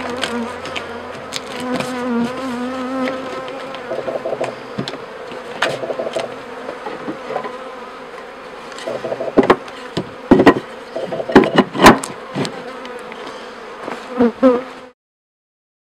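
Honey bees buzzing around an open top-bar hive, a steady hum. About nine to twelve seconds in come several sharp knocks as a flat wooden board is handled over the hive's top bars.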